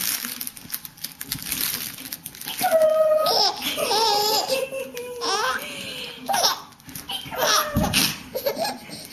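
A baby laughing: repeated bouts of belly laughs and high squeals, beginning a couple of seconds in after some soft rustling.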